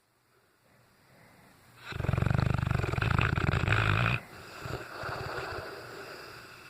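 Cane Corso snoring in its sleep: after a quiet pause, one long, loud, rattling snore about two seconds in, lasting about two seconds, followed by a softer breath that trails off.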